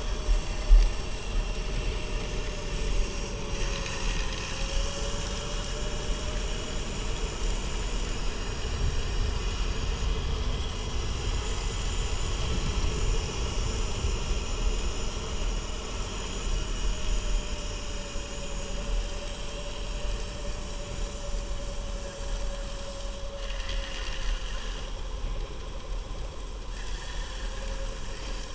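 2020 Sur-Ron electric motorbike riding slowly on a tarmac path: a thin electric-motor whine that rises and falls gently with speed, over tyre hiss and wind rumble on the bike-mounted camera's microphone. A brief thump just under a second in.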